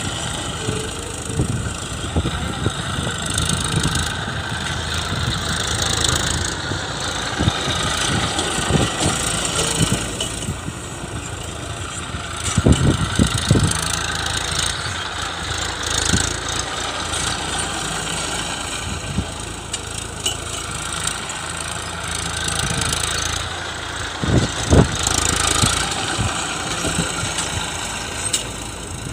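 Tractor engine running steadily while the tractor drives over paddy spread on the ground, threshing the grain out of the stalks. There are brief louder knocks or clatters about halfway through and again near the end.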